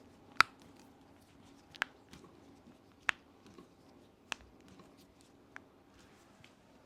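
A hand-held chiropractic adjusting instrument clicking as it fires: five sharp clicks about a second and a half apart, the later ones fainter.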